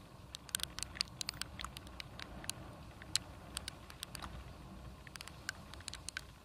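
Raindrops hitting the camera as irregular sharp ticks, thick in the first couple of seconds, thinner in the middle and bunching again near the end, over the low steady hum of the motorcycle riding in the rain.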